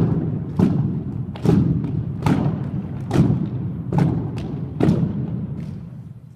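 A drill team striking the floor hard in unison during an exhibition routine: about seven heavy, echoing thuds in a steady rhythm, roughly one every 0.8 seconds, getting quieter near the end.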